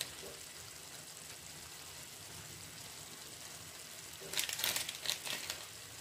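Cabbage and fish-head curry simmering in an iron kadai on a gas stove, a faint steady hiss. About four seconds in comes a short cluster of clicks and taps.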